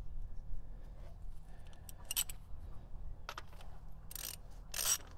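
A few short metallic clatters and scrapes of a spark plug socket and ratchet being worked on an engine's spark plug, the loudest near the end, over a low steady hum.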